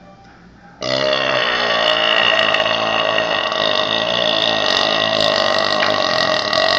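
A man's long, loud burp, starting abruptly about a second in and carrying on steadily without a break.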